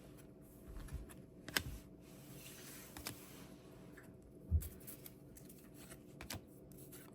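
Faint handling of trading cards: scattered light clicks and taps with a soft brushing of cards sliding over one another, and a dull thump about four and a half seconds in.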